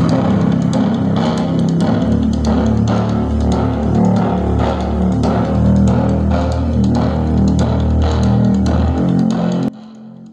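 Music with guitar and heavy bass playing loudly through a homemade speaker box driven by an LA4440 amplifier board running on a 12 V 18650 battery pack. The music cuts off suddenly near the end, leaving a low hum.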